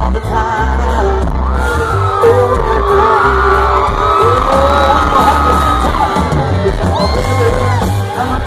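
Live amplified country band playing through a concert sound system, with a heavy bass line, and the crowd cheering and whooping over the music.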